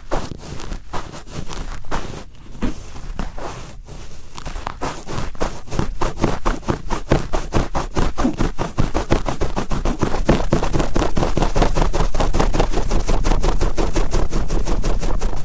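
Cotton swab rubbed and twisted firmly inside an ear (ASMR ear-cleaning), making rapid scratchy, crackling strokes. They start sparse, then after about four seconds come faster and louder in a dense run.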